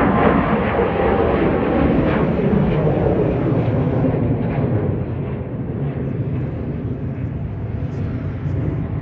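Jet airliner engines running, a steady roar that eases off after about five seconds.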